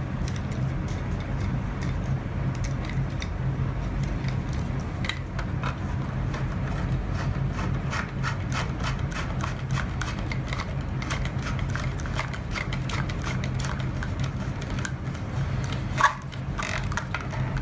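Plastic fountain-kit fittings being twisted and pushed together onto a submersible pond pump's outlet: rubbing and scraping with scattered small clicks, and one sharp click near the end. A steady low hum runs underneath.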